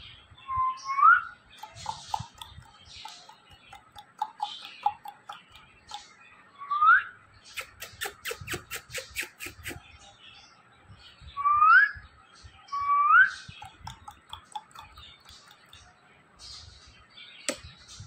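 A person whistles four short rising notes to an Indian ringneck parakeet, with the bird's soft chirps in between. A quick run of sharp clicks comes about halfway through.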